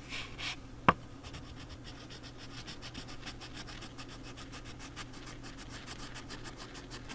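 Colored pencil lead from a Pilot Color Eno 0.7 mm mechanical pencil scratching across sketch paper in quick, even back-and-forth coloring strokes, about five a second. A single sharp click comes about a second in.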